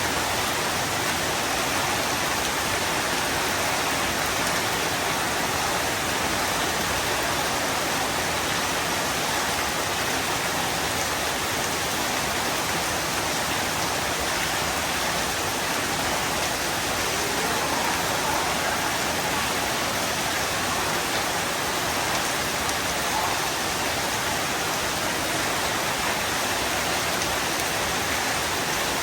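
Heavy rain pouring down steadily: an even, unbroken hiss with no let-up and no thunder.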